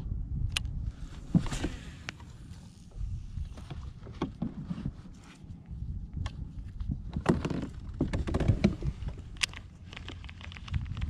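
Low rumble of water and wind around a kayak, with scattered clicks and knocks as a baitcasting rod and reel are handled, several in quick succession near the middle and later.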